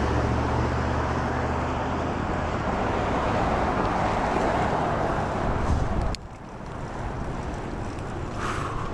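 Road traffic: a car's engine hum and tyre noise going by. The noise cuts off abruptly about six seconds in, leaving quieter street noise.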